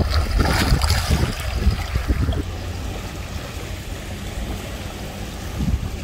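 Wind buffeting the microphone, with a rough low rumble over a rushing wash that is loudest in the first second or two.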